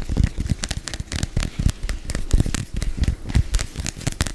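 Close-miked sticky mouth sounds from peanut butter in the mouth: a rapid, irregular stream of wet clicks, smacks and pops.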